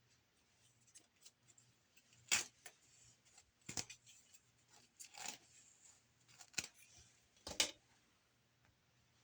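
Hair and hands rustling close to the microphone as braids are taken down: about five short, sharp scrapes a second or so apart, the loudest near the start and near the end.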